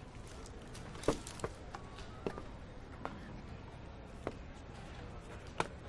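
Light footsteps: about six irregular soft knocks, the first about a second in and a sharper one near the end, over a faint steady room hum.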